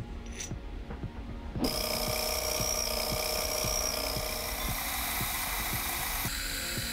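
Milling machine cutter machining the edge of a metal workpiece, starting about a second and a half in: a steady hiss of cutting with a high whine. Under it, a regular ticking of about three or four strokes a second from the running machine.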